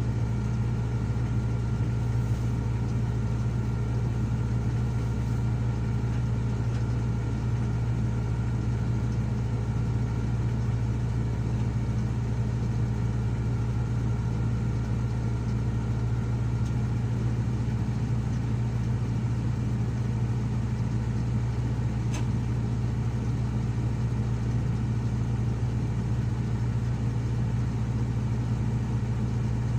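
Heavy diesel engine running at a steady speed, an even low hum with no revving or load changes.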